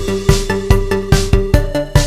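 Electronic background music with a steady, fast drum-machine beat of about two beats a second under sustained synth notes.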